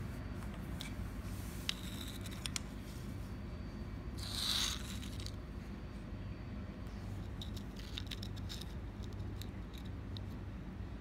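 Small clicks and taps of objects being handled, with one brief rustling scrape about four seconds in, the loudest sound, over a low steady hum.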